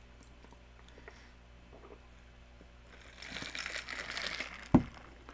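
Faint chewing clicks, then paper fast-food packaging crinkling and rustling from about three seconds in, with a single sharp thump near the end.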